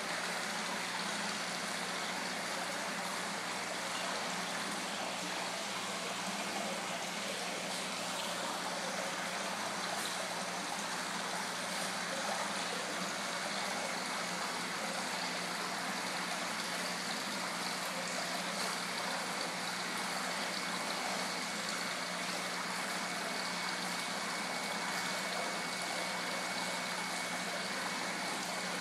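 Steady splashing rush of water from an indoor koi pond's waterfall and jet returns, with a faint steady hum beneath.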